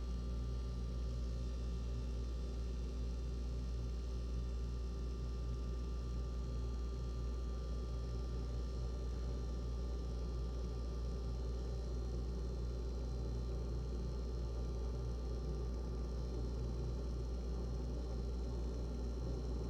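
GE refrigerator running: a steady low hum with several faint, steady whining tones above it, unchanging throughout.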